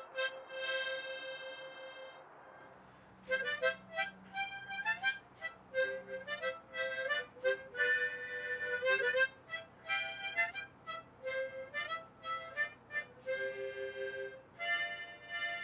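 Harmonica playing a slow tune. A held note fades out, and after a short pause the playing resumes in phrases of single notes and chords.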